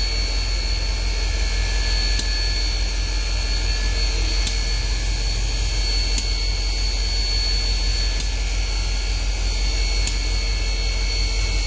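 Union Pacific Big Boy 4014, an oil-fired 4-8-8-4 articulated steam locomotive, standing with steam up: a steady loud rumble and hiss with a steady high whine, and faint clicks about every couple of seconds.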